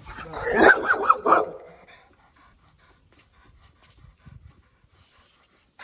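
Pit bull barking, a quick run of several sharp barks in the first second and a half.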